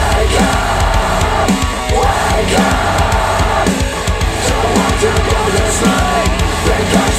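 Death metal song played back through hi-fi bookshelf speakers: loud, dense distorted music with drums and yelled vocals.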